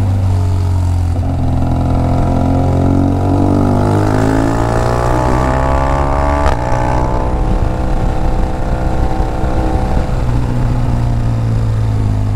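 BMW R1200GS flat-twin engine heard from on board while riding, its note climbing steadily under acceleration for several seconds. A sharp click comes about six and a half seconds in, and then the engine holds a steadier, slowly easing note at cruising speed.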